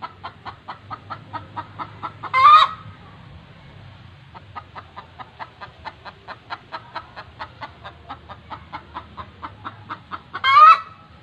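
Domestic chickens clucking in a quick run of short calls, about four a second, broken by two loud, short squawks that rise in pitch: one about two and a half seconds in and one near the end.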